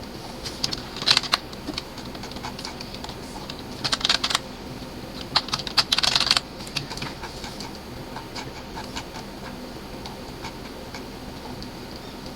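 Computer keyboard typing in three short bursts of rapid key clicks, with scattered single clicks in between and after.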